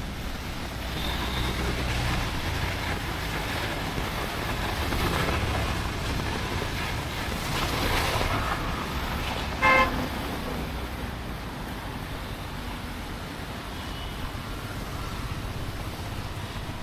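Road traffic passing, with one short vehicle horn toot about ten seconds in, the loudest sound.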